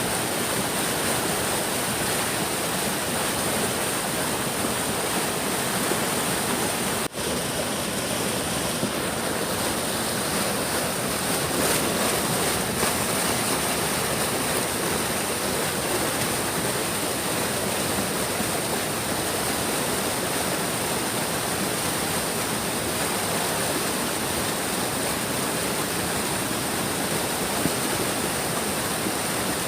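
A big stream rushing steadily, an even, unbroken water noise. There is one momentary dropout about seven seconds in.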